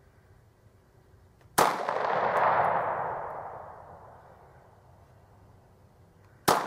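Two handgun shots about five seconds apart, the first about a second and a half in and the second near the end, each sharp crack followed by a long rolling echo that dies away over a couple of seconds.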